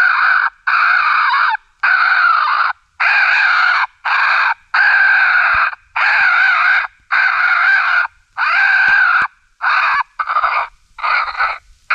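Raccoon brawl call: grown raccoons' harsh fighting squalls and screams, a dozen or so loud outbursts each under a second with short breaks between, turning shorter and choppier near the end. It is a predator-calling sound meant to draw raccoons in.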